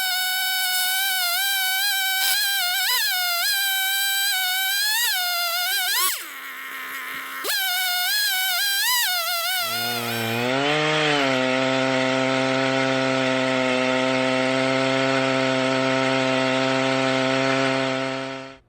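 Chainsaw on an Alaskan chainsaw mill running at full throttle, ripping through an oak log, its pitch wavering under load and dropping briefly about six seconds in. About ten seconds in the sound changes abruptly to a steady, lower-pitched hum that slides once and then holds until it cuts off suddenly at the end.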